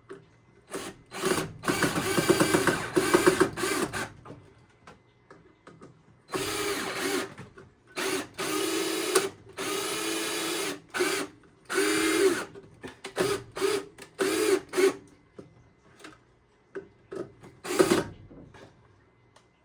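Power drill driving screws in stop-start runs: one long run of about three seconds, several runs of about a second, then a string of short trigger blips and one last brief run near the end.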